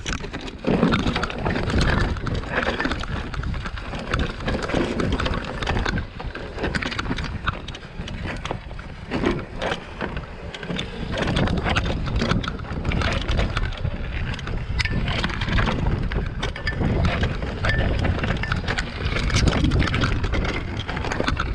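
Mountain bike descending a rocky rock-garden trail: tyres rolling over rock and loose stones, with a constant stream of sharp knocks and rattles from the bike.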